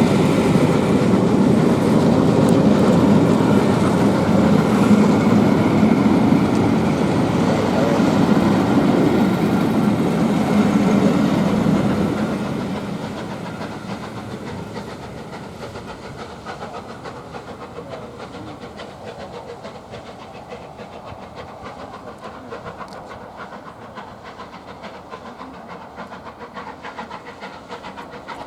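Steam-hauled train rolling past, its wheels rumbling and clicking over the rail joints, loud for about twelve seconds and then fading away as the train moves off.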